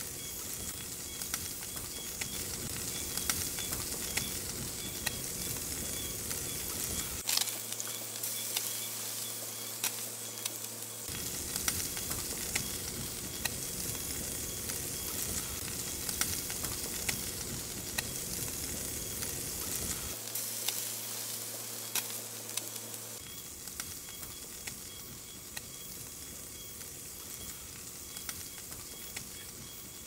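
Food sizzling as it fries: a steady hiss dotted with many small crackles and pops.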